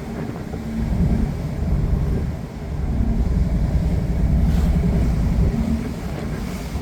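Tour cruise boat under way: a steady low rumble from the boat, rising and falling in loudness, with a faint steady hum underneath.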